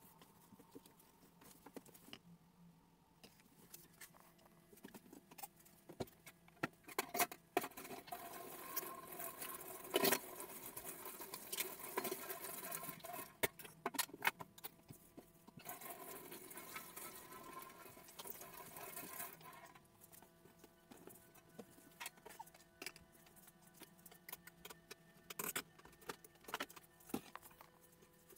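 Kitchen clatter: utensils, pots and dishes knocking and clinking in irregular short clicks, with a stretch of steady hiss in the middle and a faint steady hum.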